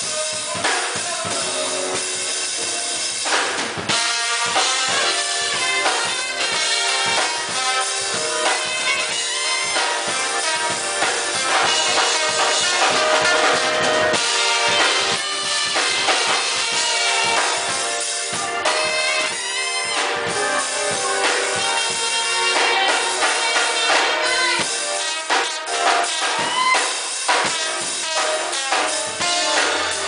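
Live band playing an up-tempo number: a drum kit keeps a steady beat under a horn section of saxophone and trumpet.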